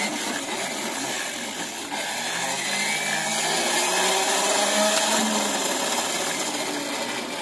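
Wind-up radio's hand crank being turned, its gears and dynamo giving a continuous grinding whirr that changes pitch with the cranking speed.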